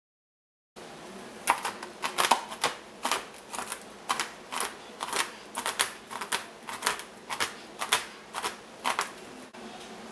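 A kitchen knife chopping a pile of pecans, walnuts and pumpkin seeds on a plastic cutting board: a run of sharp knocks, about two a second, starting about a second in.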